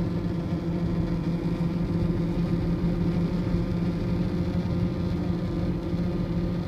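Steady buzzing drone heard inside a moving 2004 Range Rover's cabin, over road and engine noise. The buzz grows with road speed; its cause is not yet known.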